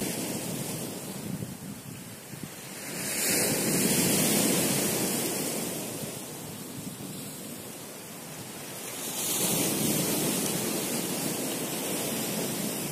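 Sea waves breaking on a rocky shore, the surf rising and falling back twice.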